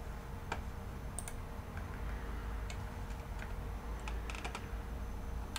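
Scattered light clicks from someone working a computer, about a dozen spread over several seconds, with a quick cluster of clicks about four and a half seconds in. A steady low hum runs underneath.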